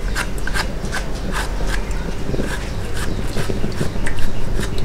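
A large curved chopping knife striking again and again into a peeled bamboo shoot held in the hand, cutting it into small bits, about three crisp chops a second.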